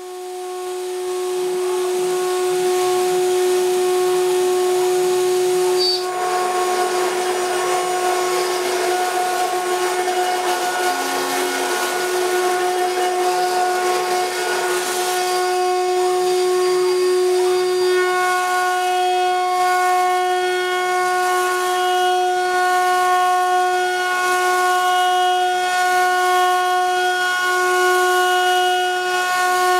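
Spindle motor of a home-made CNC mill running with a steady high whine, with a rougher noise added from about six to fifteen seconds in.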